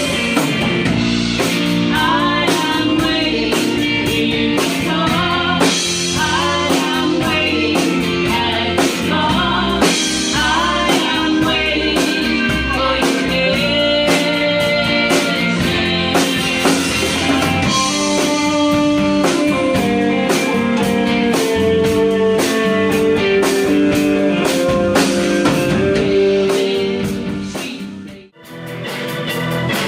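Live band playing, with a drum kit, guitar and singing. The music fades out sharply near the end and comes back in.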